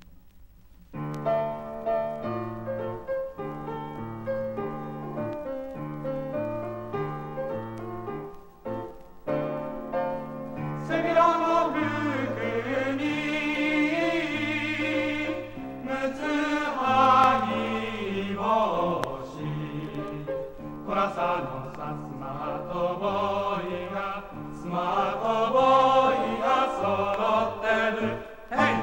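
Male chorus singing a Japanese ondo folk-dance song with instrumental accompaniment, played from a 1966 flexi disc (sonosheet). An instrumental introduction with a stepping bass line starts about a second in. About ten seconds later the choir comes in with the first verse.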